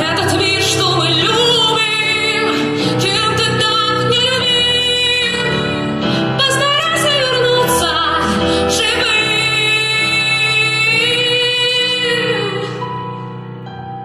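Female solo voice singing over a backing track, with long held notes that waver in vibrato. The music fades near the end.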